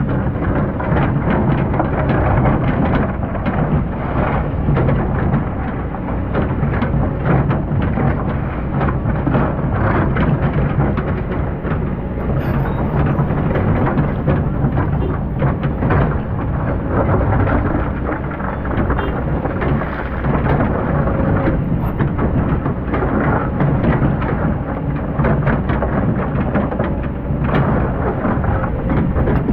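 Excavator running as it digs sand: a steady low rumble with dense crackling throughout.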